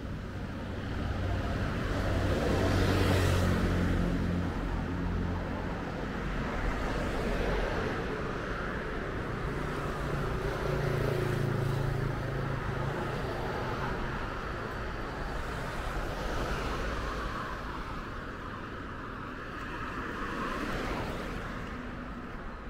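Roadside traffic: vehicles passing one after another, the loudest going by about three seconds in and another around eleven seconds in.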